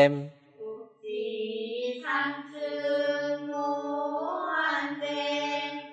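A man chanting a line of classical Chinese verse in the slow Korean recitation style. After a short break about a second in, he holds long drawn-out notes that bend and rise near the end.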